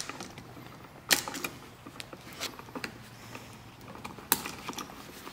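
Sharp metallic clicks and snips of wire strippers working a copper hot wire into a hook for a light switch's terminal screw, with the switch and its plastic box rattling in hand. The loudest click comes about a second in and another about four seconds in, with smaller ticks between.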